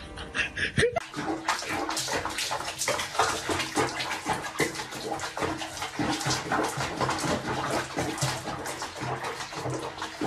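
Water splashing and sloshing in a basin where a cat is being bathed, a busy, irregular spatter.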